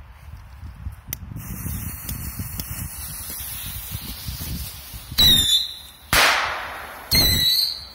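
Small whistling rockets going off: a fuse hisses for a few seconds, then two rockets launch one after the other, each giving a short shrill whistle followed about a second later by a loud bang.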